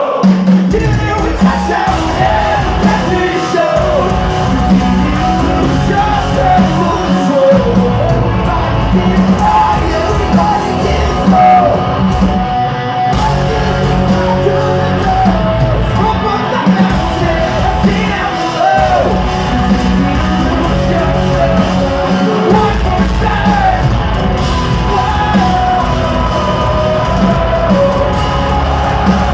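Hard rock band playing live in a concert hall: electric guitars, bass and drums with a male lead vocal that is sung and yelled. The full band comes in just after the start.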